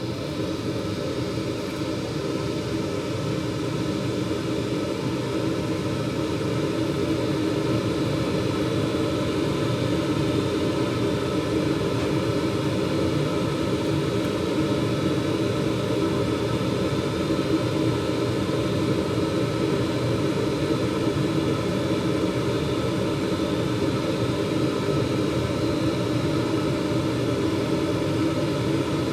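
2021 Carrier gas furnace starting up: its draft inducer fan spins up and then runs with a steady hum, the first stage of the furnace's firing sequence.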